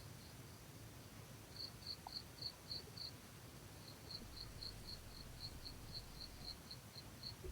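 Faint cricket chirping in runs of about four chirps a second, broken by short pauses.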